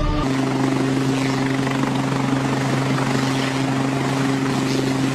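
Helicopter running: a steady engine hum with a constant low tone over rushing rotor and wind noise. It starts as music cuts off just after the beginning.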